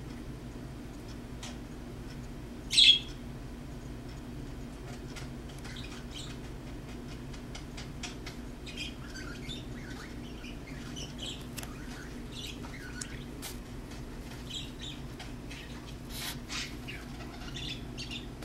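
Birds chirping, with one loud call about three seconds in and a run of short calls through the second half. A steady low hum sits underneath.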